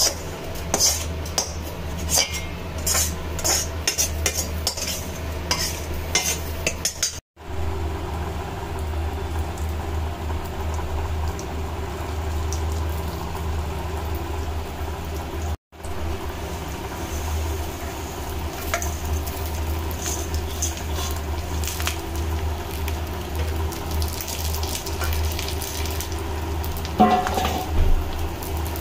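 A metal spatula scraping and clinking against an iron kadhai and a steel pot while a crumbly roasted mixture is scraped out. Then ghee sizzles in the hot kadhai, and a steel ladle stirs chopped dry coconut and nuts in it, with a few louder clinks near the end. A steady low hum runs underneath throughout.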